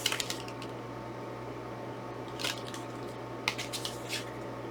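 Plastic Blu-ray case and its inserts being handled: a few light clicks and rustles, mostly in a short cluster at the start and again past the middle, over a steady low hum.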